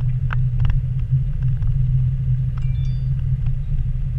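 Vehicle cabin rumble while driving slowly on a rough dirt road, with a few sharp clicks and knocks from the cabin as it goes over bumps.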